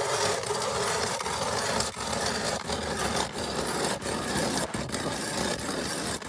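Hand-cranked ice auger boring through ice: a steady scraping, grinding crunch of the blades cutting, dipping briefly about every two-thirds of a second with each turn of the crank.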